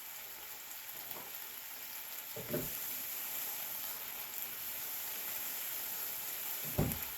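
Beef stew pot sizzling steadily on the stove, the hiss getting louder about two and a half seconds in. Two short low knocks, one then and one near the end.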